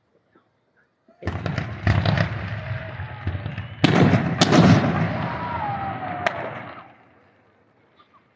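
Fireworks going off: after about a second of quiet a barrage of bangs and crackle starts suddenly, with sharp cracks about two, four and four and a half seconds in, then dies away about seven seconds in.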